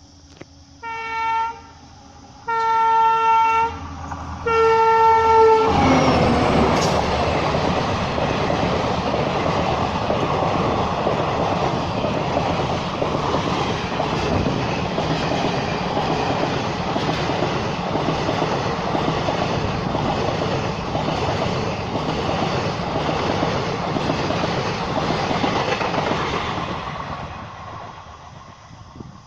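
EMD diesel locomotive sounding its horn in three short blasts, then a train passing close by at speed, with engine and wheel-on-rail noise loud for about twenty seconds before fading away.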